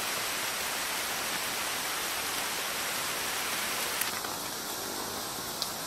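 Steady, even hiss of rainforest background noise. About four seconds in, after a faint click, a higher steady hiss joins it.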